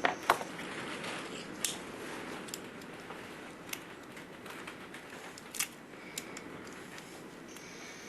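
Steady hiss of wind and rain on a garage roof, with a scattering of sharp clicks and knocks from handling the drive shaft, tools and parts. The loudest knock comes just after the start.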